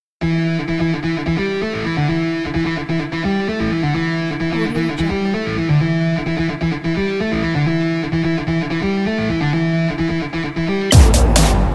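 Background music led by a plucked guitar, starting after a brief cut to silence. About 11 s in it switches abruptly to a louder track with a heavy, regular beat.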